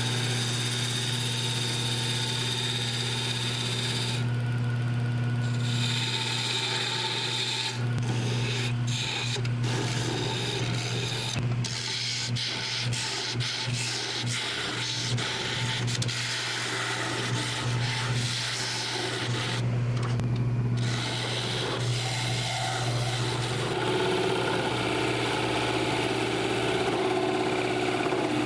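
Jet wood lathe running with a steady motor hum while a carbide turning tool cuts the spinning wood blank, a rough scraping noise that drops out briefly a few times as the tool comes off the wood.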